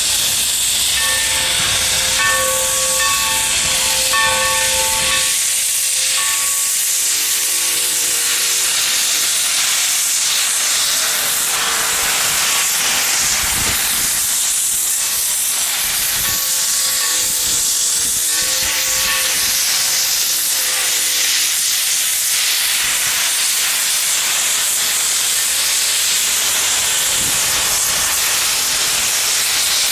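Tangshan-built steam locomotive New Haven #3025 hissing steam steadily as it departs. A pitched tone sounds in stretches three times over it.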